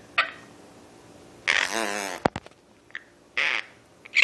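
A single fart sound with a wobbling pitch lasting under a second, about a second and a half in, followed by a sharp click and then one short squawk from a Quaker parrot near the end.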